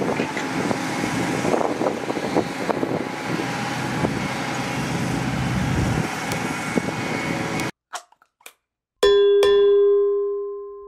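Diesel Doosan hydraulic excavators running and digging while they load a dump truck, with scattered knocks over the engine noise. About three-quarters of the way in it cuts off; a few short whooshes follow, then a single bright bell chime rings out and slowly fades.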